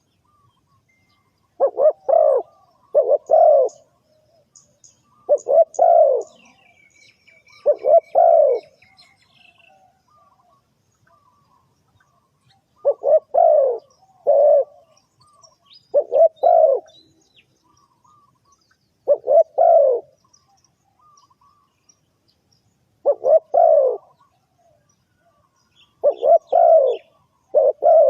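Spotted dove cooing: short phrases of two or three low coos, repeated every few seconds. Faint high chirps from a smaller bird are also heard a few seconds in.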